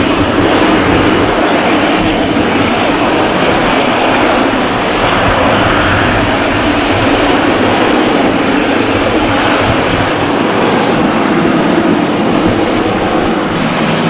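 Boeing 777 freighter's twin GE90 turbofans running at idle-to-taxi thrust as the jet taxis past, a loud, steady jet rumble and hiss with no rise or fall.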